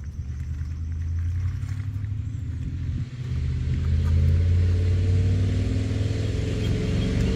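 A vehicle engine running, growing louder, with a brief drop about three seconds in and its pitch creeping up near the end.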